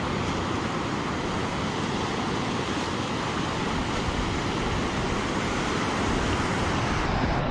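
Ocean surf washing and breaking along the beach, a steady rush of noise, with a low rumble of wind on the microphone.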